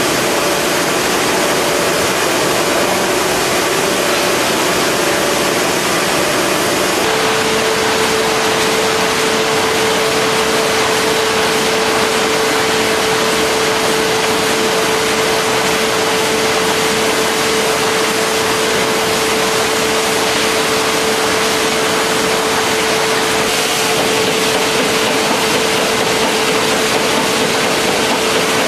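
Fidia DESTA multiple-creasing machine for book covers running steadily, a continuous mechanical whirr and hiss with a steady hum that changes pitch about seven seconds in.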